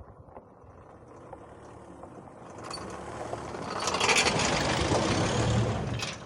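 Motor vehicle driving, a rushing noise that swells over a few seconds to a loud peak and cuts off suddenly at the end.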